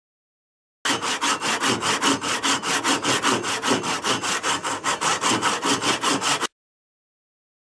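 Handsaw cutting through a piece of wood with quick, even back-and-forth strokes, about five a second. It starts abruptly about a second in and stops abruptly about a second before the end.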